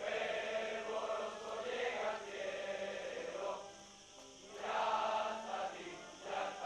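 Many voices singing together in unison, with a dip about four seconds in between phrases.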